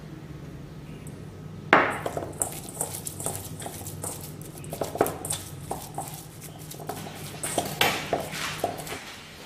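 Ground pork being mixed by hand with chopped herbs in a bowl: a quick, irregular run of soft slaps and clicks with knocks against the bowl, starting sharply about two seconds in.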